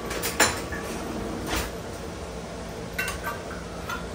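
Metal kitchenware clinking and tapping on a counter: a few separate light knocks, some with a short ring, as a small container is handled and opened.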